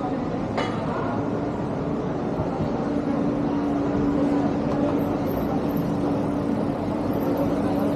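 Busy city street noise, mostly traffic, with a steady engine hum that strengthens in the middle. A short sharp sound comes about half a second in.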